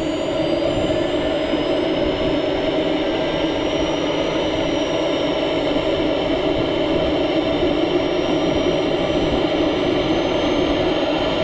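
Model jet's gas turbine running on the ground during its start sequence: a steady, loud rush with a thin high whine that slowly rises in pitch as the turbine spools up toward idle.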